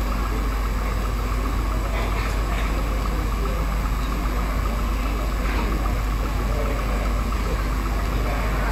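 Steady low hum with a hiss over it, and a few faint clicks about two seconds in and again a few seconds later.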